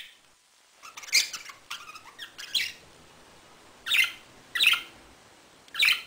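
Pet budgerigar chirping: about five short, high calls spaced a second or so apart.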